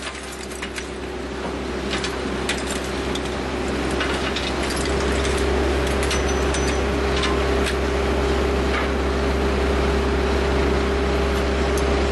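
Engine crusher running with a steady low hum and drone, and scattered clicks and rattles as crushed engine fragments drop down the discharge chute into a metal pallet box.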